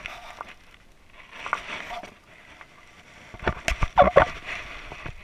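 A hooked fish splashing and thrashing at the water's surface in bursts, with a cluster of sharp splashes and knocks about three and a half to four and a half seconds in.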